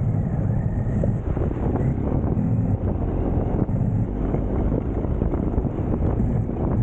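Off-road vehicle driving over rough ground: a steady low engine and rolling rumble with scattered small knocks, and wind buffeting the microphone.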